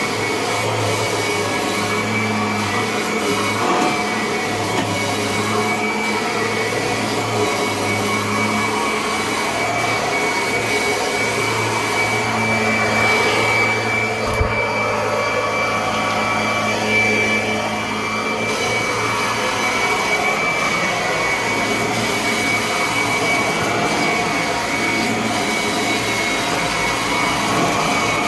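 Kirby upright vacuum cleaner running steadily, a constant motor whine over rushing air as it works across the floor, with a brief knock about halfway through.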